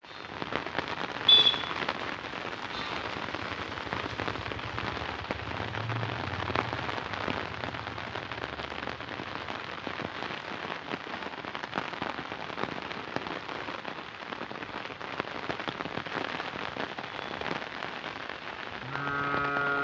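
Steady rain pattering on leaves and the ground, a dense run of fine drops. A sharp short sound about a second in stands out above it, and a low drawn-out call sounds for about a second near the end.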